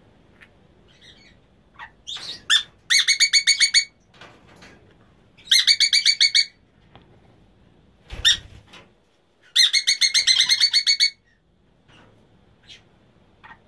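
Emma's conures calling: three bursts of rapid chattering notes, about ten a second and each lasting about a second, with a few single short calls in between.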